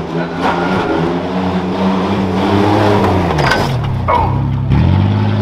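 Pickup truck engine running hard on a dirt track, its pitch dropping sharply about four and a half seconds in and then climbing again as the throttle comes back on. A few sharp knocks are heard about three and a half seconds in.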